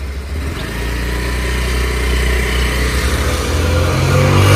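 Motor scooter engine running, growing gradually louder, its pitch rising near the end as it is revved.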